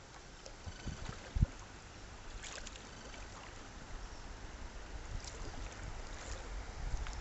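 River water rushing and splashing around a kayak, growing louder as the boat runs into a rapid, with a sharp knock about a second and a half in and a few small splashes.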